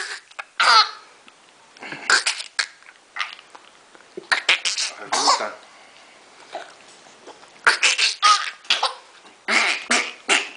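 A toddler giggling in short, breathy bursts that come in several clusters, some of them sounding like little coughs.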